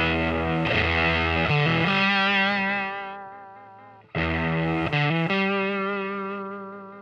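Electric guitar through the CA-108b's OTA compressor stacked into its silicon fuzz, fuzz turned up, played into a 1970s Fender Super Twin Reverb. Distorted chords are struck and left to ring out with long, fading sustain; a new chord comes in about four seconds in, with a couple of quick changes.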